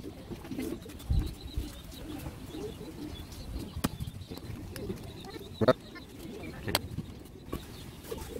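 Doves cooing steadily in the background, with a few sharp knocks and taps from a rubber tyre strip being handled against a wooden wheel disc, the loudest a little past the middle.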